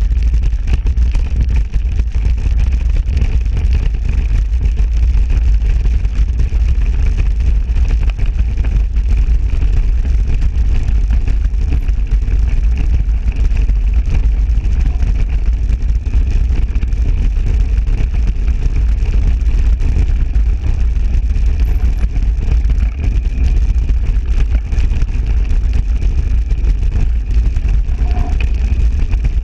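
Heavy wind buffeting on the microphone and tyre rumble from a mountain bike riding fast downhill on a dirt track.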